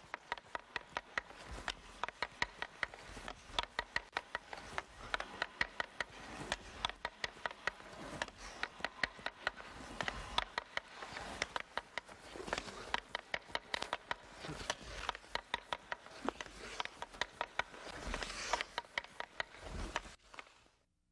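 Hockey stick blade knocking a puck back and forth on the ice while stickhandling, a run of sharp, irregular clicks a few per second.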